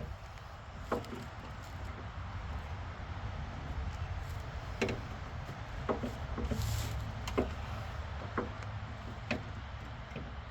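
Scattered metallic knocks and clicks, about eight of them at uneven intervals, as a heavy front strut assembly is handled and worked into place on a truck's suspension, over a steady low rumble. A short hiss comes about two-thirds of the way through.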